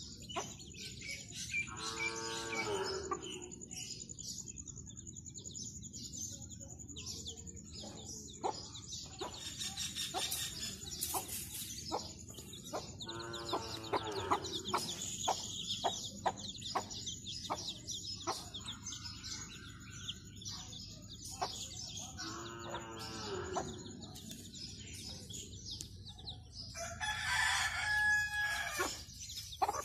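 A brood of chicks peeping steadily with short high chirps, while an adult chicken gives three longer calls about ten seconds apart. The loudest stretch of calling comes near the end.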